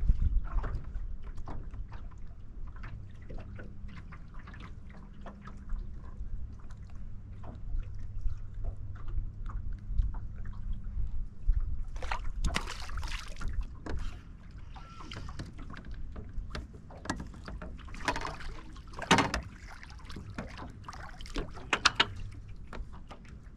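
Choppy lake water sloshing and lapping against a fishing boat's hull, with scattered knocks and clicks. A low steady hum fades out about halfway, and louder rustling and handling noises come after it.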